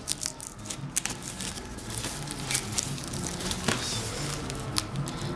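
Plastic film on a cardboard shipping box crinkling and rustling as the box is handled, with scattered light clicks and taps.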